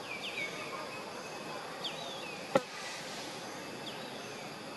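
Outdoor background hiss with short, faint high chirps every second or so, and one sharp click about two and a half seconds in.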